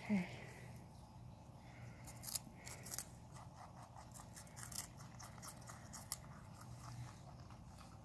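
Small animals crunching and chewing raw vegetables such as bell pepper: a run of quick, crisp bites, thickest in the middle. A short call falls in pitch right at the start.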